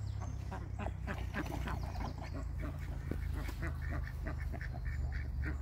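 A flock of ducks quacking, many short calls in quick succession and overlapping, over a steady low rumble.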